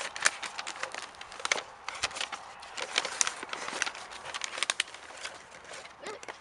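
Tissue paper and packaging crinkling and rustling in a cardboard box as it is unpacked and a dog noses through it, in a dense string of quick crackles.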